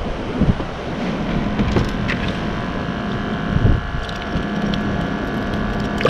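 Wind buffeting the microphone, with a steady mechanical hum coming in about a second in and a few light clicks.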